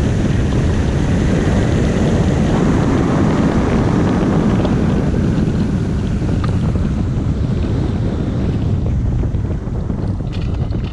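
Airflow rushing over the microphone of a camera mounted on a hang glider's frame as the glider glides in low to land. The rush eases a little near the end as the glider slows, and a few light clicks come in the last second or so.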